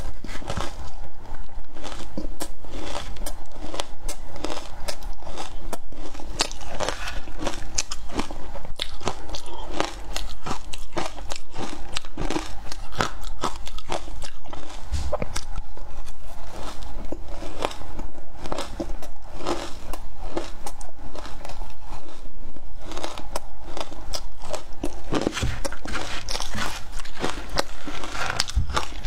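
Close-miked crunching and chewing of matcha-flavoured crushed ice, a dense, irregular crackle of crunches that goes on without a break.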